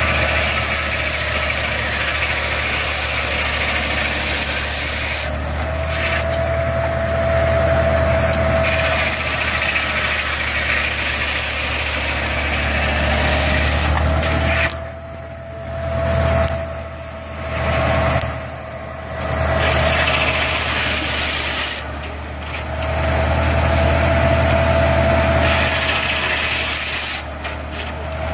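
A tractor engine runs steadily under load, driving a Case shingle mill by a flat belt as it saws cedar blocks into shingles. A steady whine comes and goes every few seconds with the cutting. The whole sound drops briefly three times a little past halfway.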